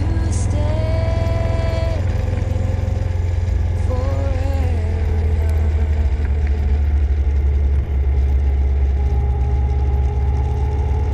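Steady low engine and wind rumble heard from a camera riding on a moving vehicle.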